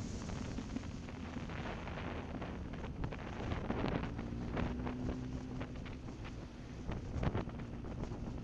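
Wind rushing over the microphone of a moving motorcycle, with the engine's low drone running underneath.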